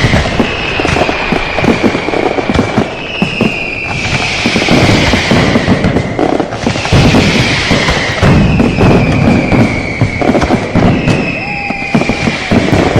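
Firecrackers and fireworks going off in dense, rapid bangs and crackle, with falling whistles from whistle-type fireworks every two to three seconds.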